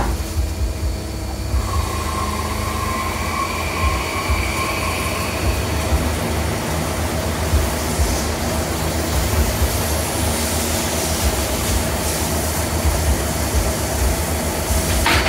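Mazak Integrex 35 multi-tasking lathe machining a spinning blue plastic round bar: a steady machine whir and rumble with coolant spray hissing, and a faint whine for a few seconds near the start.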